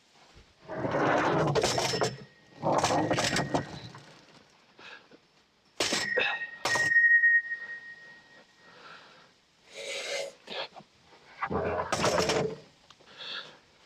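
Metal clanking and knocking in separate bursts. A sharp hit about six seconds in leaves a brief ringing tone.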